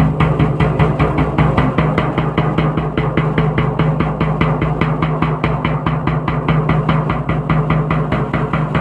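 Music with a fast, steady drumbeat of about five or six strokes a second over a held low tone.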